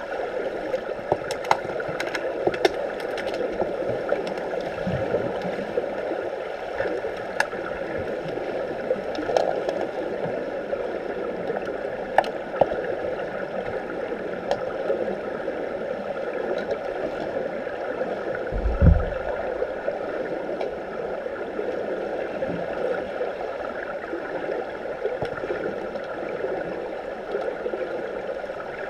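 Underwater pool ambience picked up by a submerged camera: a steady muffled rushing noise with scattered sharp clicks and knocks. There is a low thump about 19 seconds in.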